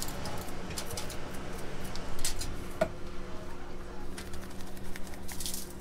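Small kitchen handling noises: a spice shaker being shaken and aluminium foil crinkling under a hand as a whole fish is seasoned, scattered clicks and rustles over a steady low hum.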